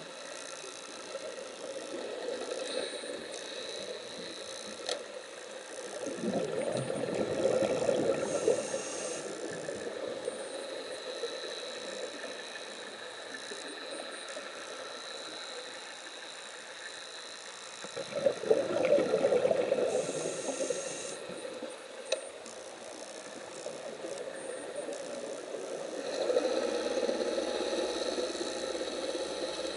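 Scuba diver's breathing heard underwater through the camera housing: three long bursts of exhaled regulator bubbles about twelve seconds apart, the last near the end, over a steady background hiss.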